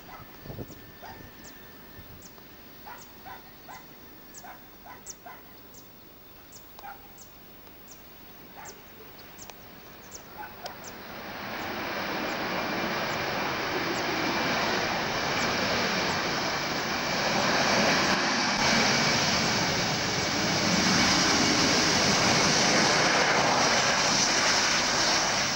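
Jet engine roar from a landing Airbus A320-214's CFM56 engines, building about eleven seconds in and staying loud as the airliner rolls out along the runway. Before it, faint high chirps repeat about twice a second.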